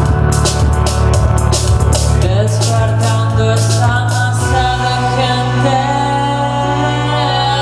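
Live rock band playing: drums with a steady run of cymbal strokes over bass and guitar chords, until the drums drop out about halfway, leaving sustained chords over a held bass note.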